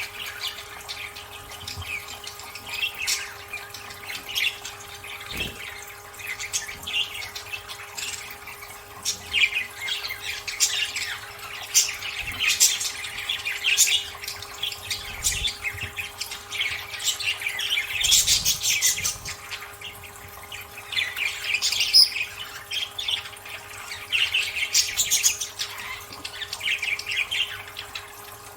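Budgerigars chattering and squawking, many short, quick calls overlapping with hardly a pause, over a faint steady hum.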